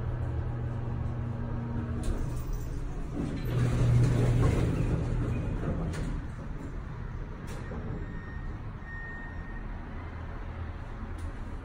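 Hydraulic elevator ride: a steady motor hum cuts off about two seconds in. It is followed by a few seconds of louder rushing noise with a low rumble, which then settles to a quieter steady background.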